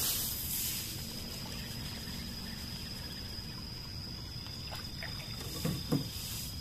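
Night insects keeping up a steady high drone over a low background hiss, with a rustle of clothing at the start and a couple of soft knocks near the end as a fishing rod is handled.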